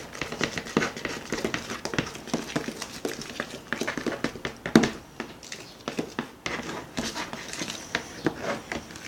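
Fluffy slime being stirred in a bowl: a busy, irregular run of sticky squelches and clicks, with one sharper knock about halfway through.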